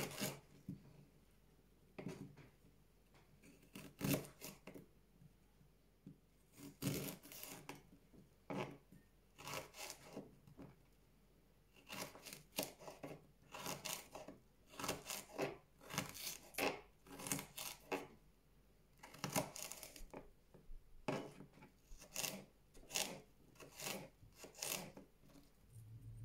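Small kitchen knife cutting and peeling fresh ginger root on a plastic cutting board: short, irregular cuts and scrapes, spaced out at first and coming quicker in the second half.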